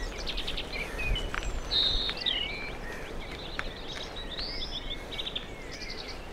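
Several small wild birds singing and chirping, with quick trills and short rising and falling whistles, over the low steady rumble of a bicycle riding along a gravel path.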